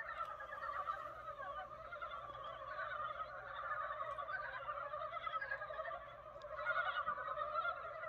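A dense chorus of frogs calling together, many overlapping pulsed croaks in a low and a higher band, swelling a little near the end. It is an early-spring chorus of frogs just woken from hibernation.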